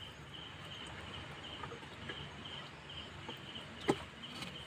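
Faint insect chirping at night: a short high note repeating steadily, two or three times a second. A single sharp knock sounds about four seconds in.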